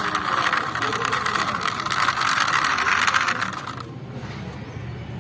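Plastic toy vehicle's gears and wheels whirring with a fast, dense clicking as it is rolled, stopping just under four seconds in.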